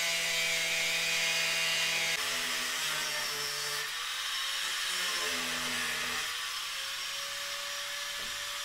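Electric angle grinder running and cutting into the wall of a plastic drum, a steady grinding whine whose pitch shifts several times as the disc takes the load.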